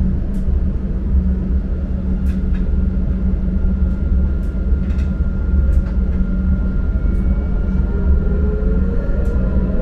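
Dubai Tram heard from inside the car as it runs: a steady low rumble with a few sharp clicks, a thin steady tone setting in about two seconds in, and a rising whine near the end.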